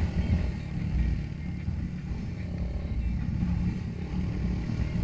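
Haojue Chopper 150 motorcycle's single-cylinder engine running steadily while riding, a low exhaust note.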